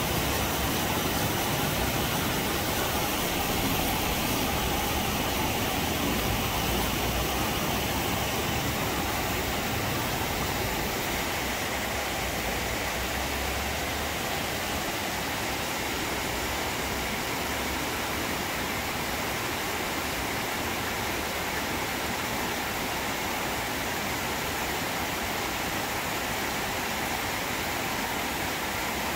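Steady rain falling on leafy trees and corrugated-metal roofs, an even hiss with no let-up.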